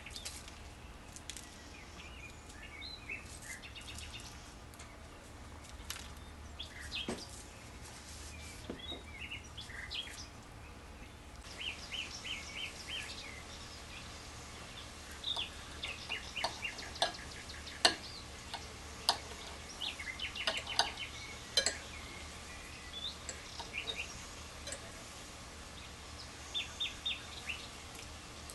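Birds chirping in short repeated trills, with a few sharp clinks of a knife and fork against a ceramic plate.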